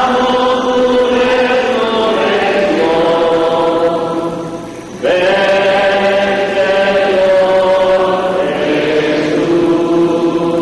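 Many voices singing a slow liturgical chant together, in long held notes. The singing breaks off briefly about five seconds in and then starts again.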